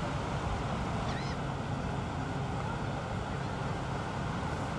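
Steady wind and surf noise with a low rumble underneath, and a short faint bird chirp about a second in.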